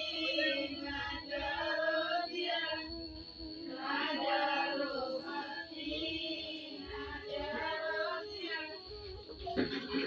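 A group of women singing a Karam festival folk song together, with low beats running underneath.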